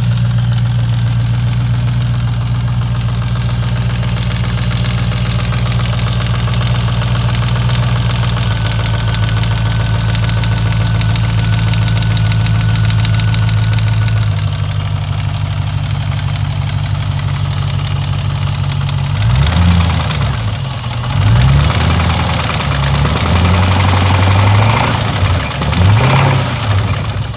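2002 Jeep Grand Cherokee's 4.7-litre HO V8 idling steadily with a knock, then revved up and down several times from about 19 seconds in. The knock comes from a worn-out rear main bearing and loose crankshaft rod bearings.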